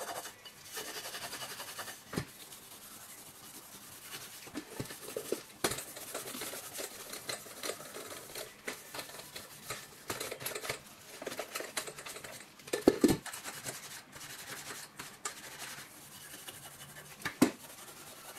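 Abrasive scouring pad scrubbing the bottom and sides of a stainless steel pot in uneven rasping strokes, working off grease and burnt-on deposits softened by a degreaser spray. A few sharp knocks come as the pot is turned, the loudest about thirteen seconds in.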